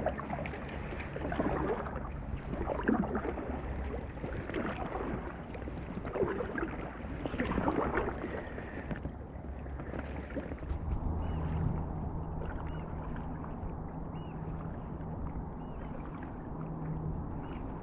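Kayak paddle strokes dipping and splashing in the water, irregular and busiest in the first half.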